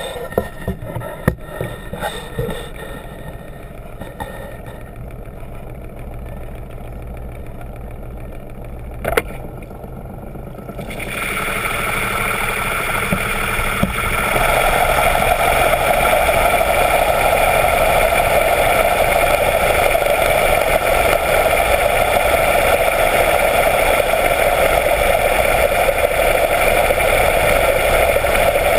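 Yacht's engine and 16-inch folding propeller heard underwater: a few sharp clicks in the first seconds, then the noise builds in two steps, about a third of the way in and again around halfway, as the propeller spins up. It settles into a steady loud hum with several steady tones.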